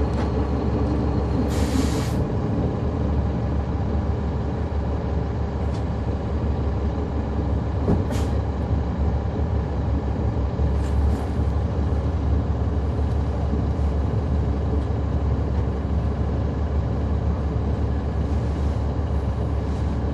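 Caterpillar C13 ACERT inline-six diesel of a NABI 40-SFW transit bus running steadily, heard from inside the bus. About two seconds in there is a short burst of air hiss from the bus's air brakes, and a single sharp click comes about eight seconds in.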